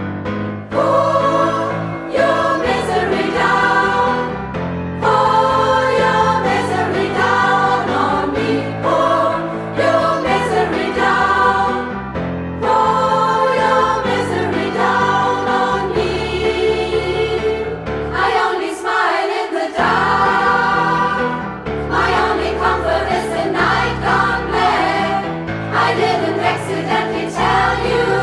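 Women's choir singing a rock song arrangement in several parts, over steady low sustained notes.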